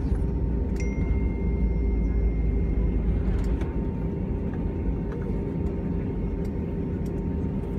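Cabin noise of an Airbus A320 taxiing, heard from a seat over the wing: a steady low rumble of the engines at taxi idle with a steady hum, and a few faint clicks.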